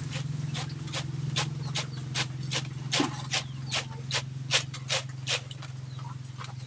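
Hot oil frying in a wok under a wire skimmer of drained macaroni chicharon. Over it run a steady low hum and sharp clicks about two or three times a second.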